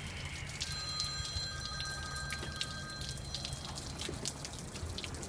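Dirty water from a flexitank dripping and splashing in irregular drops over a steady low hum. For a couple of seconds near the start, thin steady high tones sound faintly alongside.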